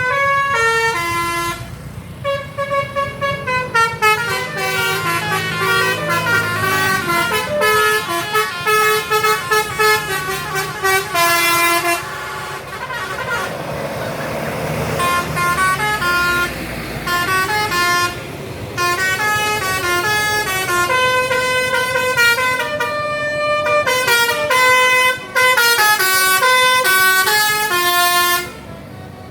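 Bus 'telolet' basuri musical air horn playing a tune of quick stepped notes. Around the middle the notes thin out for a few seconds under a noisy rush, then the tune resumes.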